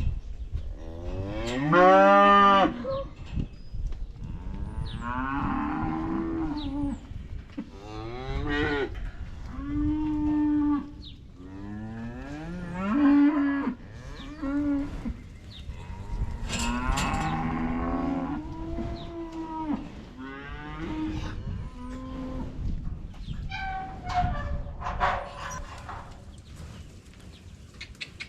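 Cattle mooing and bawling over and over, about ten long calls that each rise and fall in pitch, sometimes overlapping; the loudest call comes about two seconds in.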